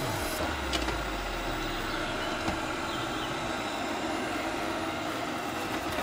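Amarey A900 robot vacuum running over car carpet: a steady hum of its suction motor and brushes, with a couple of faint ticks.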